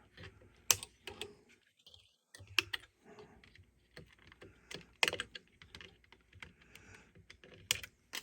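Irregular sharp clicks and snips of wire cutters clipping the leads of old capacitors out of a tube-era power supply chassis, with small metallic taps as the tool and parts are handled.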